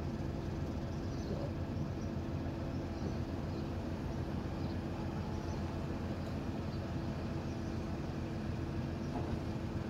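Steady low rumble of outdoor background noise with a constant hum, and faint short high chirps scattered through it.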